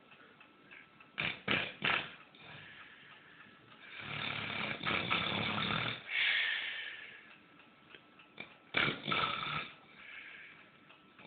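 A sleeper snoring in uneven breaths. Three quick snorts come about a second in, one long snore follows in the middle, and two more snorts come near the end, with quiet gaps between breaths.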